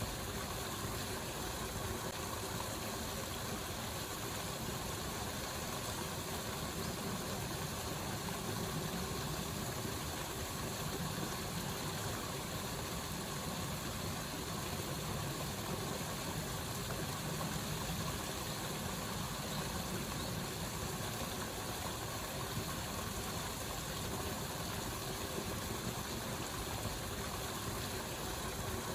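Steady rush of flowing water, even and unbroken, typical of a waterfall or stream.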